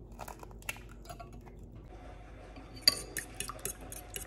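Kitchen clatter: metal utensils and a pan being handled, a series of light clinks and knocks with one sharp knock about three seconds in.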